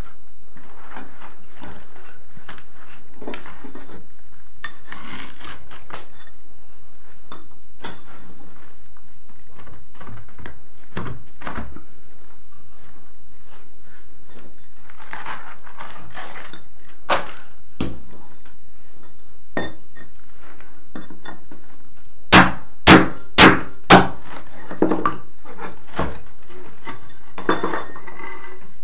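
Broken concrete and rubble of a torn-up floor being handled, with scattered knocks and scrapes. About 22 seconds in come four loud, sharp strikes about half a second apart, each with a high metallic ring.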